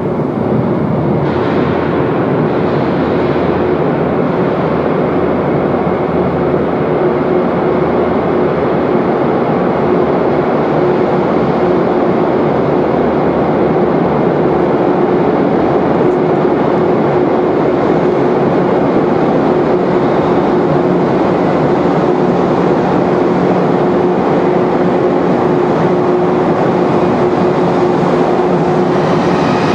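A JR 115-series electric train approaching through the tunnel: a loud, steady rumble that grows slowly, with a constant hum running through it. Several high-pitched tones join in near the end.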